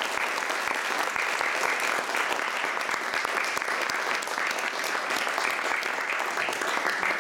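An audience applauding steadily after a lecture, a dense patter of many people clapping.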